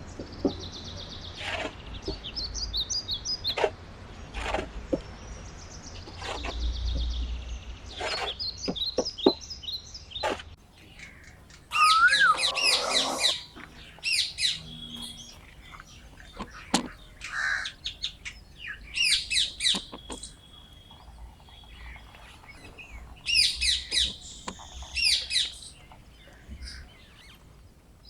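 Small birds chirping and singing in repeated short, high phrases, with scattered sharp clicks and knocks between them.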